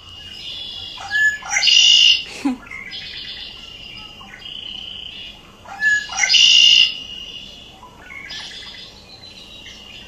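Recorded song of a male red-winged blackbird played back through a speaker: a few short notes followed by a harsh, metallic-sounding trill, heard twice about four and a half seconds apart.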